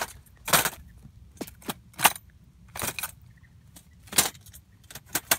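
Gray squirrel caught in a wire-mesh cage trap, thrashing and rattling the cage: a string of sharp, irregular clanks and knocks.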